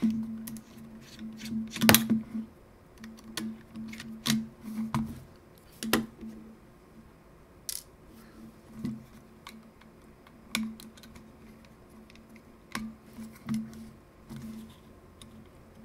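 Scattered small clicks and taps from a partly disassembled Nikon One Touch L35AF2 compact film camera being handled and worked with a small screwdriver. The loudest clicks come about two seconds and six seconds in.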